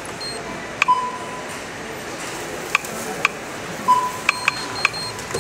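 Checkout beeps: two short electronic beeps, one about a second in and one near four seconds, amid scattered light clicks and clinks of items being handled at the register.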